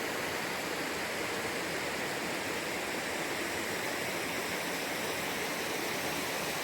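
Steady rushing of falling water, an even roar that does not change.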